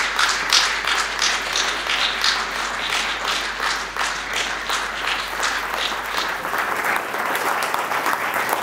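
Audience applauding, many hands clapping together in a dense, steady patter.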